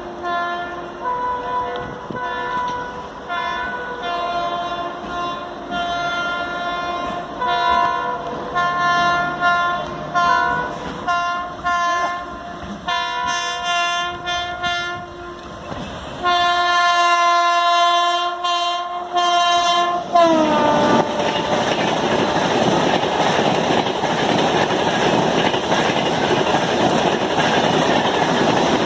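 A WAP-7 electric locomotive's horn sounds many short blasts, then one long blast of about four seconds that falls in pitch as the locomotive passes about twenty seconds in. After that comes the steady rush and clatter of the express train going by at speed.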